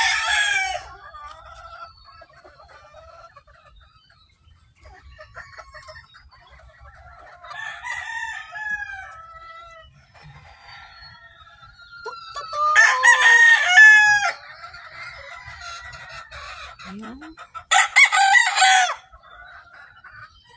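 Roosters crowing several times: one crow trails off just after the start, a softer one comes around eight seconds, and loud ones come around thirteen and eighteen seconds. Hens cluck quietly in between.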